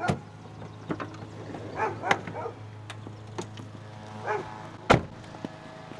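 Minivan doors opening and people climbing out, with scattered clicks and knocks and one sharp door slam about five seconds in, the loudest sound. A couple of short pitched calls come in between.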